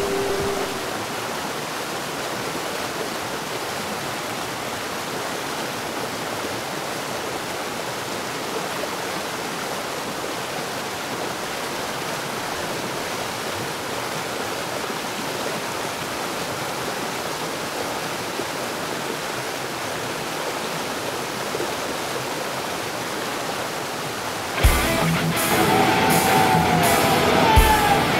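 Steady rush of whitewater river rapids. About 25 seconds in, rock music with guitar comes in and plays over it.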